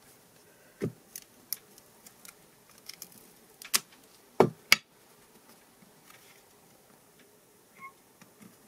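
Scattered sharp clicks and knocks as a craft brayer is picked up, rolled over a glued card on a craft mat and set down, the loudest two knocks coming close together about four and a half seconds in.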